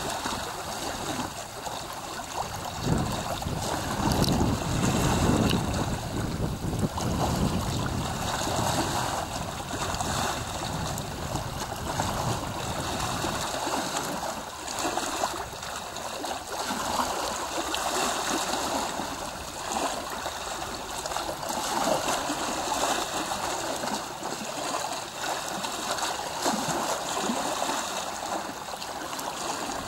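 Small waves lapping and gurgling close to the microphone, in an uneven wash. Wind buffets the microphone with low rumbling gusts through the first half, easing about halfway through.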